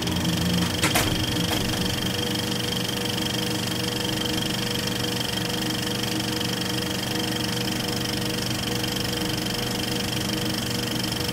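Film projector running with a steady mechanical sound and a thin high whine. A couple of sharp clicks come about a second in.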